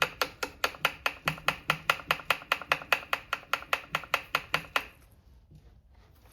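Homelite C5 chainsaw's stiff chain pulled by hand around the bar, giving an even run of sharp clicks, about five or six a second, that stops about five seconds in.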